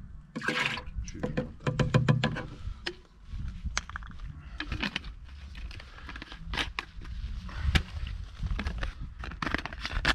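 Hard plastic bottles, screw caps and a measuring cup being handled: a busy run of sharp clicks, knocks and short scrapes as they are knocked together and set down on gravel.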